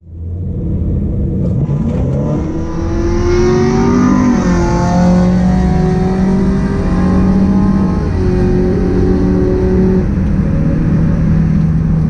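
Ford F-150's twin-turbo V6 at full throttle on a drag-strip pass, heard from inside the cab. The engine note climbs and drops back at upshifts about four and eight seconds in, then holds steady near the end.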